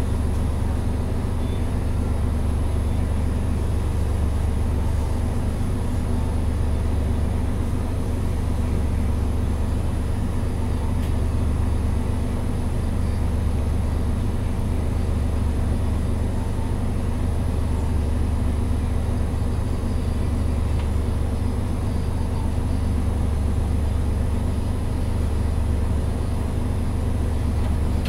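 Mitsubishi Fuso Aero Star bus's 6M70 turbocharged straight-six diesel idling steadily while the bus stands in traffic, heard from inside the cabin at the front.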